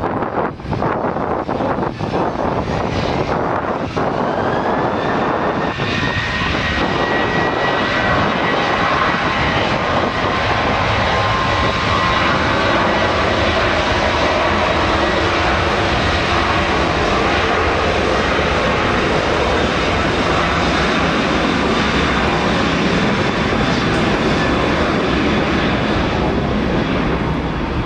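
Boeing 737's CFM56-7B turbofan engines spooling up to takeoff thrust for the takeoff roll: a whine rises about five seconds in and then holds steady over a loud, even jet rush.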